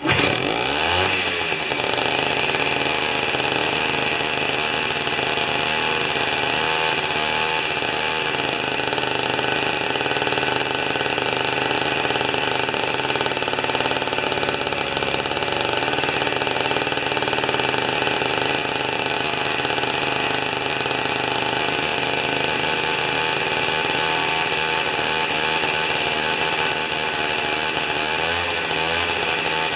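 Tecumseh two-stroke snow-thrower engine starting abruptly and running noisily at a steady high speed, its pitch wavering slightly near the end; its carburetor mixture is set just on the rich side of smooth.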